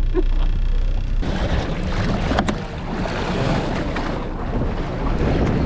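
Wind and water noise on an offshore fishing boat, with a steady low engine hum underneath. About a second in, a loud rushing noise sets in, typical of wind buffeting the microphone and spray off the hull.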